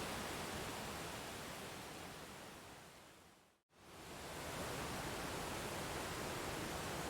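Steady rushing waterfall sound that fades out over a few seconds to a moment of silence about three and a half seconds in, then fades back in within about a second, as at a loop or edit point in the track.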